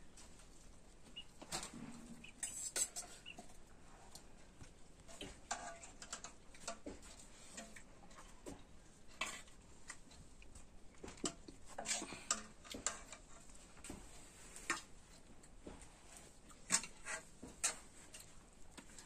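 Scattered small clicks and taps of fingers and hands on plates and small bowls as rice and curry are eaten by hand, the sharpest two near the end.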